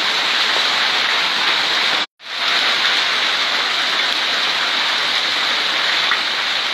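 Hailstones pelting the ground in a heavy hailstorm: a dense, steady hiss of many small impacts. It drops out completely for a moment about two seconds in.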